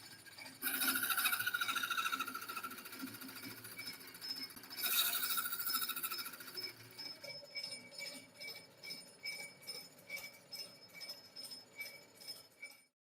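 Chiming electronic outro music: a bright shimmering swell, a second swell, then a pulsing beat of about two a second that fades and cuts off.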